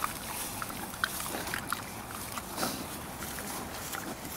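A pig chewing strawberries with its mouth open, making wet smacking and clicking sounds.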